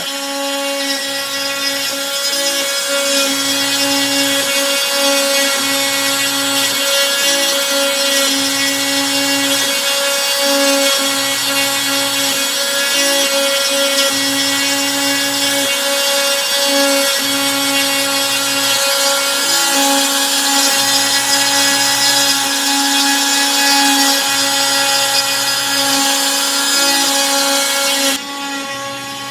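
Bosch Colt trim router spinning a 1/8-inch single-flute end mill as a CNC machine cuts a pocket in scrap shelving board: a steady high whine with the rasp of the cut. A lower hum, typical of the machine's stepper motors driving the axes, comes and goes every few seconds as the bit works back and forth. The sound drops in level near the end.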